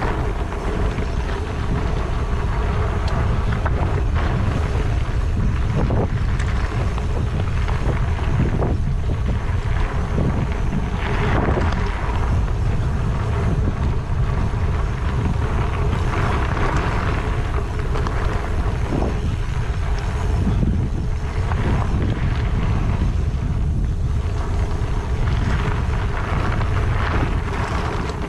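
Wind rumbling on the microphone of a mountain bike coasting down a trail, a loud, steady, rough noise.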